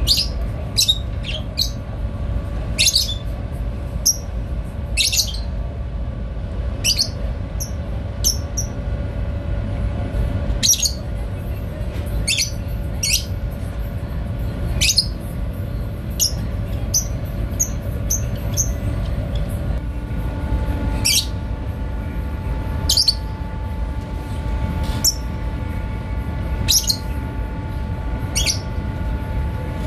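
Steady low rumble of ship machinery, most likely the tug's diesel engine running as it holds against the ship, with a hum that changes pitch about two-thirds of the way through. Short, sharp bird chirps sound over it every second or two.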